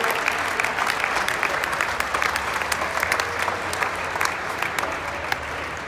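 Small crowd of spectators applauding: a dense patter of hand claps that gradually fades.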